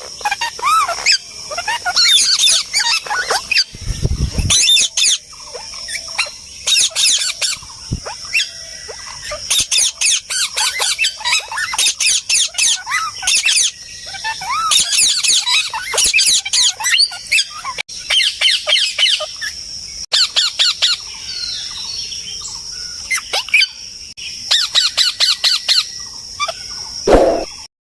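Parrots squawking and chattering in repeated bursts of harsh, rapidly warbling calls, with short pauses between bursts.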